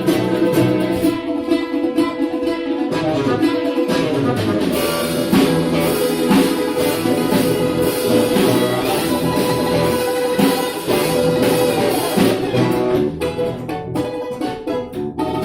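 Live instrumental ensemble music with sustained pitched notes over a steady beat.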